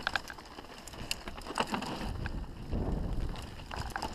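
Enduro mountain bike rolling down a rough dirt and stone trail: tyre rumble with scattered clicks and rattles from the bike. Wind buffets the microphone, heavier around the middle.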